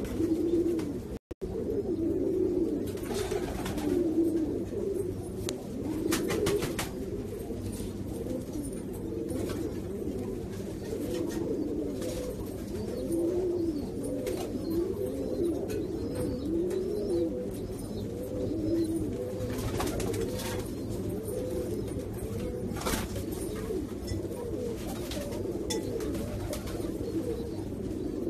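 Domestic pigeons cooing, several birds' coos overlapping in a continuous rising-and-falling run, with a few short clicks.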